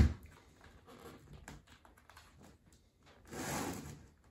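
Handling of a lidded plastic container of breaded fish: faint light taps, then a short scraping rustle about three seconds in.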